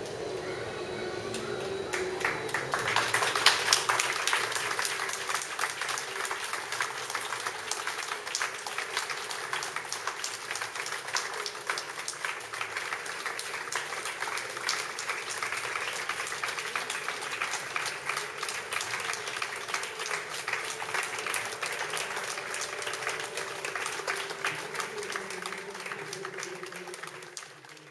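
Audience applause, breaking out about two and a half seconds in, running on steadily and dying away near the end.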